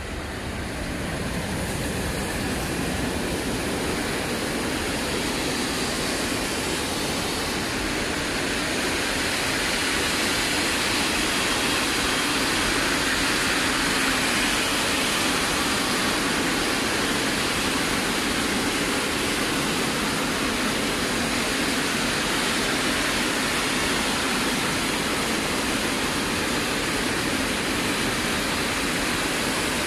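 Freight train of loaded open coal wagons rolling past: a steady rushing rumble of wheels on the rails that builds over the first couple of seconds and then holds.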